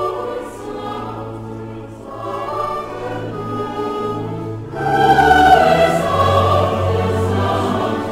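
Dramatic soundtrack music with a choir of long held voices, swelling louder about five seconds in.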